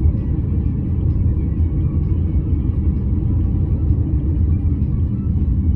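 Moving car's steady low road rumble from engine and tyres while driving along a city street.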